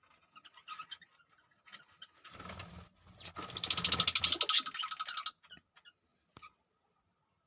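Lovebird calling: a few faint chirps, then from about three seconds in a loud, rapid chatter of about a dozen sharp notes a second that lasts about two seconds and stops abruptly.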